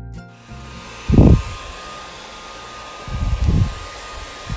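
Electric hair dryer blowing steadily, a hiss with a thin high whine. Two loud low rumbles break through it, about a second in and again around three seconds.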